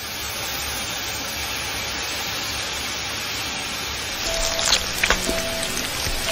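Steady hiss of steam rushing from a titan's body, an anime sound effect. About four seconds in, a few sparse music notes and several sharp cracks join it.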